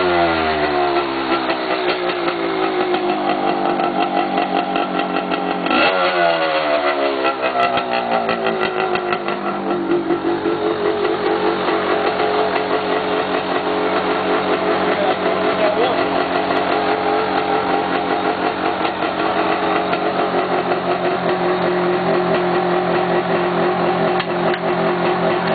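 1983 Suzuki RM 250's two-stroke single-cylinder engine settling from a rev at the start, revved sharply once about six seconds in with the revs gliding back down over a few seconds, then running at a steady idle.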